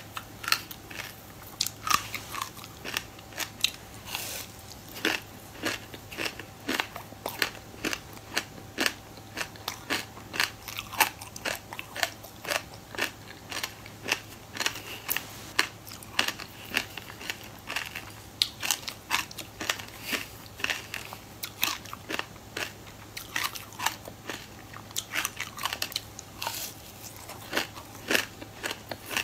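Close-miked crunching of dry sesame seeds and buckwheat as they are chewed: sharp, crisp crunches coming two or three times a second.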